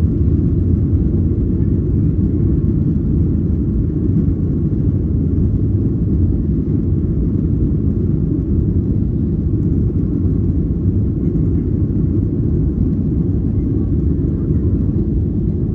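Steady low rumble of an airliner's jet engines and airflow, heard inside the passenger cabin.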